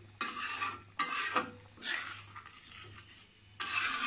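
A flat spatula scraping and stirring spice paste around a black iron kadai, four scraping strokes with a longer pause before the last. This is the masala being fried down (kosha) in oil.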